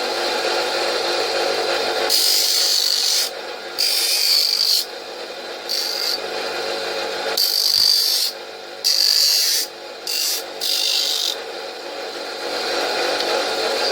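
Hand tool rasping on metal in a run of separate strokes, each about half a second to a second long with uneven pauses between them, as the tank brackets are cut and shaped.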